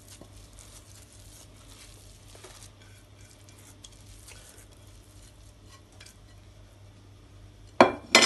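Faint scraping and rustling as a damp semolina basbousa mixture is pushed by hand out of a glass bowl into an aluminium baking pan. Near the end come two loud, sharp knocks as the glass bowl is put down.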